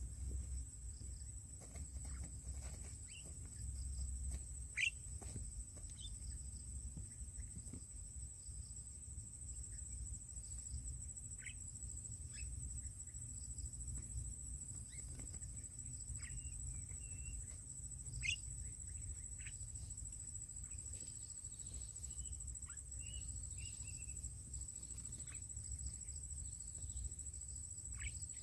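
Scattered short bird chirps and calls over a steady high-pitched insect drone, with a constant low rumble underneath.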